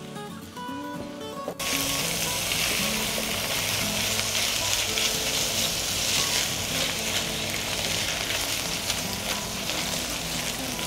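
Diced meat sizzling as it fries with onion and butter in a frying pan, stirred with a spatula; the loud sizzle starts suddenly about a second and a half in. Background music plays underneath.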